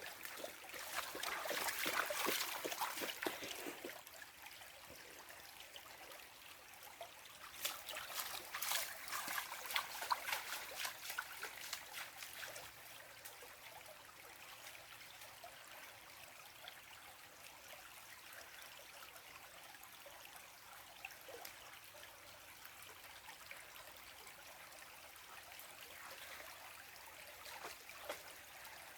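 Shallow river water trickling steadily, with two louder spells of splashing: one about a second in and one about eight seconds in.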